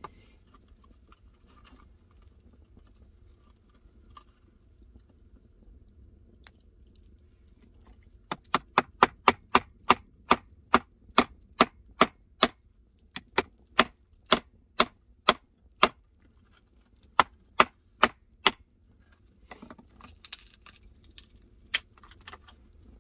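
Sharp wooden knocks, two or three a second with short pauses, as a blade is batoned down through a small piece of firewood to split off a thin slab. Quiet scraping of the blade on the wood comes before and after the knocking.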